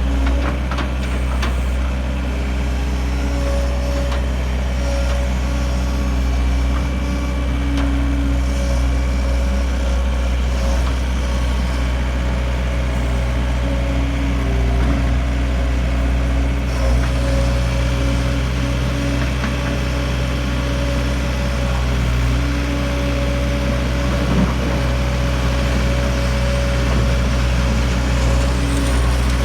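Diesel engine of a 2005 John Deere CT322 compact track loader running steadily at low speed, with a constant deep rumble.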